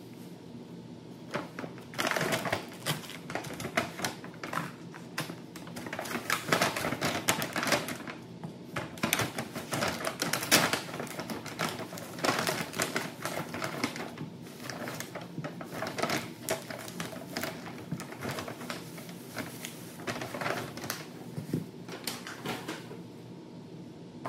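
Groceries being unpacked: paper grocery bags rustling and crinkling, with packages clicking and knocking on the stone countertop, starting about two seconds in and going on irregularly.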